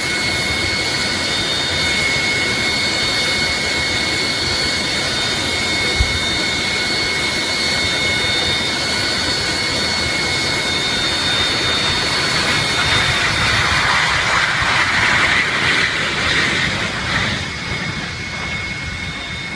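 Jet aircraft engine running: a steady high turbine whine over a loud rushing noise. There is a brief thump about six seconds in, and the sound swells louder around two-thirds of the way through before easing near the end.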